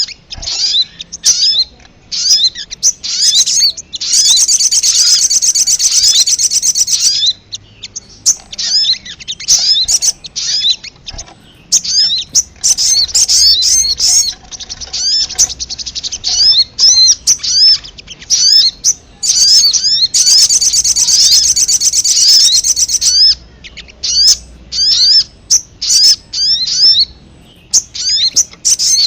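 Sogon (sogok ontong) bird calling: rapid series of sharp, high chirps, broken twice by a dense chattering trill lasting about three seconds each. These are lure calls, played to attract wild sogon birds.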